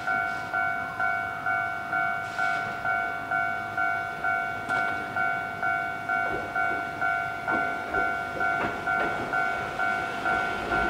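Railway level-crossing warning bell ringing steadily at about two strikes a second. Under it, a Hankai Tramway Mo 701-series tram approaches over the points, its wheels clicking over rail joints a few times in the second half, with a low rumble starting near the end.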